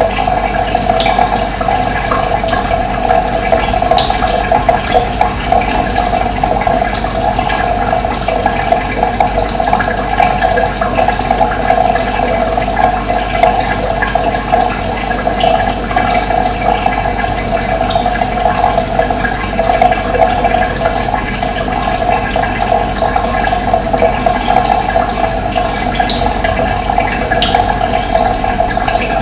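Running water flowing with a steady, continuous rush.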